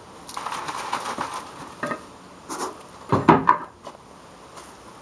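An upturned plastic soda bottle and a wooden board being handled and set down on concrete: a rattling scrape in the first second or so, then a few knocks, the loudest cluster a little past halfway.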